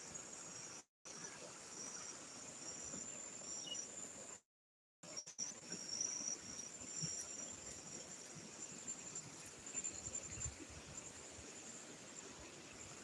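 Faint, steady high-pitched trilling of insects in the vegetation, pulsing in short repeated phrases. The sound cuts out completely twice early on, and a few soft low thumps come near the end.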